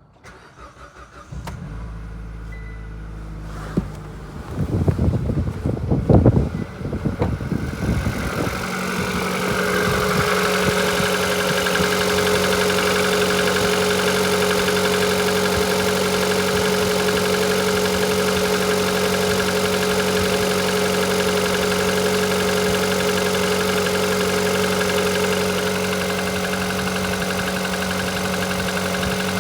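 Car engine cranked over for a few seconds until it catches, then idling steadily. This is an engine at 160,000 km in which the owner has noticed a new knock.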